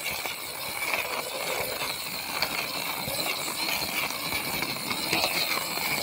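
Red plastic toy fire truck rolling over dirt and small pebbles, its wheels and body rattling, over a steady high hiss.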